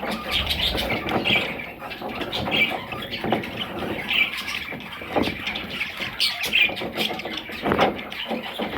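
Parrots squawking and chattering, a busy run of short, shrill calls mixed with clicks.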